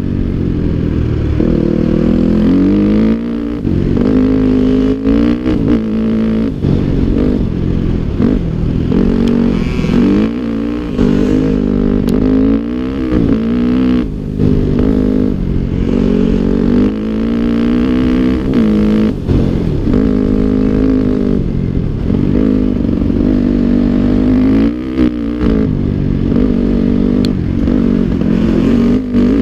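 Dirt bike engine under way, heard close up from the rider's helmet, its revs repeatedly climbing and then dropping sharply as the rider works the throttle and shifts gears, with short dips in loudness throughout.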